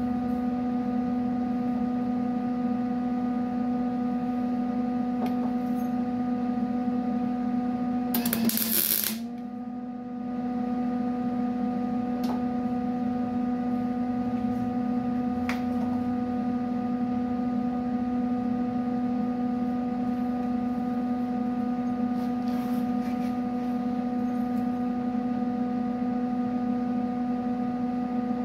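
A steady electrical hum, broken about eight seconds in by one tack weld: a burst of arc noise lasting about a second, after which the hum drops out for a moment and comes back. The weld is a stud being tacked in under a 1951 Chevy truck.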